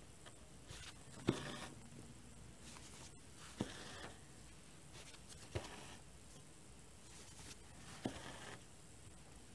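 Hand cross-stitching: four soft taps about two to two and a half seconds apart, each followed by a short rasp as the needle and thread are drawn through the stiff cross-stitch fabric.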